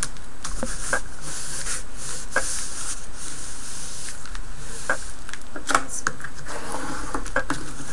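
Card stock rustling with scattered light taps as hands press and smooth a paper aperture frame down onto a woven paper background.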